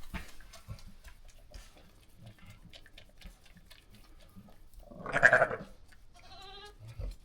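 Sheep bleating twice: a loud bleat about five seconds in, then a shorter, quavering one, over faint small clicks and rustling.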